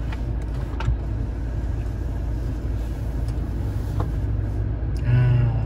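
Steady low rumble inside a stationary car's cabin, with a couple of faint clicks.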